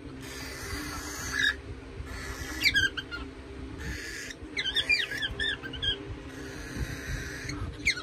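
Pet cockatiel chirping in short runs of quick, squeaky rising and falling notes: about a second and a half in, near three seconds, a longer run around five seconds, and again near the end. A steady hiss runs underneath.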